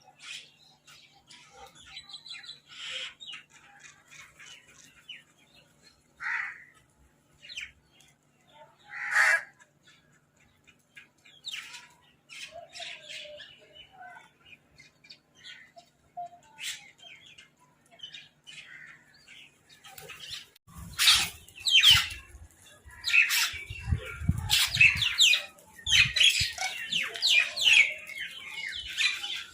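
Crows and mynahs squawking and calling over food. The calls are scattered and intermittent at first; about two-thirds of the way in they break into a loud burst of overlapping squawks with low thumps mixed in.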